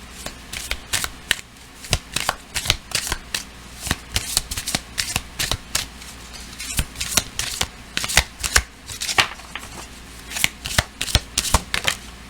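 A deck of oracle cards being shuffled by hand: an irregular run of crisp card snaps and slaps, several a second, in clusters with short pauses between them.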